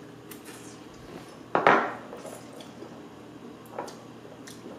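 Glass shot glasses clinking and knocking lightly against a countertop, a few small taps, with one louder sudden sound about a second and a half in.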